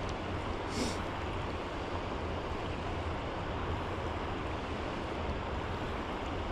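Steady rush of flowing river water, an even hiss without strong breaks.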